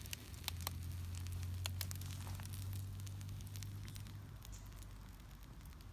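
Wood campfire crackling, with scattered sharp pops over a low steady rumble that slowly fades toward the end.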